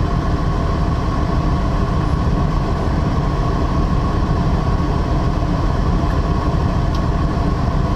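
Semi-truck's diesel engine running steadily, heard from inside the cab as an even, low-pitched noise with a faint steady whine.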